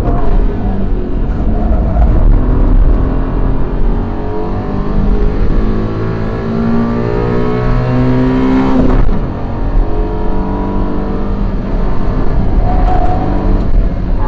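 Suzuki Carry DA63T kei truck's 660 cc three-cylinder engine, heard from inside the cabin, pulling hard under acceleration with its pitch climbing steadily. About nine seconds in the pitch drops with a gear change, then climbs again, over steady road and tyre rumble.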